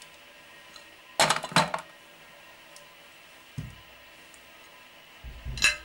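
Metal spoon clinking against a glass mixing bowl of raw ground beef: a quick cluster of clinks about a second in, a dull knock a little past the middle, and more clinks with a low thump near the end.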